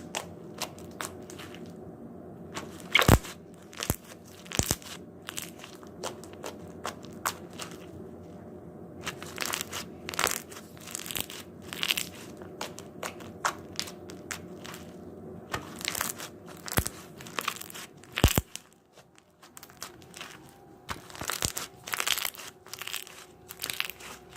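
Slime being squeezed and poked by hand, giving irregular sharp clicks and pops with crunching between them, over a faint steady hum.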